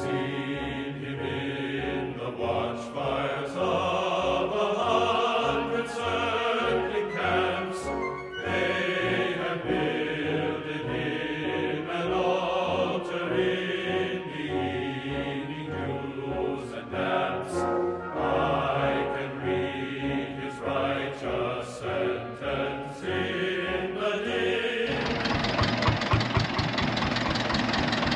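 Choral and orchestral background music. About three seconds before the end it cuts to a vintage tractor engine idling with a steady, rapid beat.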